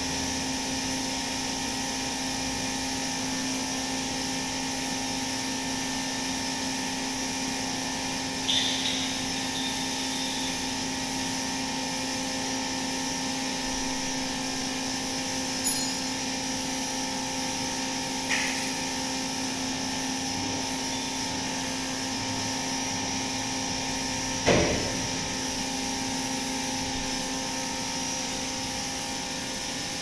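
Steady hum of a running motor, with several fixed tones and a high hiss, broken by a few short knocks, the loudest about twenty-five seconds in.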